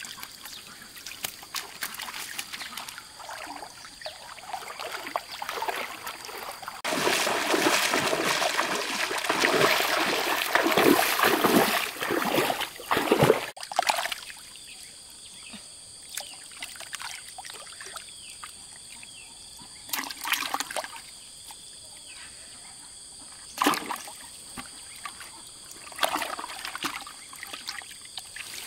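Water splashing and trickling, with a loud stretch of splashing for about six seconds a quarter of the way in, then trickling broken by a few short splashes.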